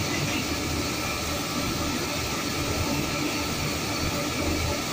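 Automatic train wash plant at work: motor-driven rotating brushes scrubbing the wet side of a railway coach with water spraying, a steady, even noise.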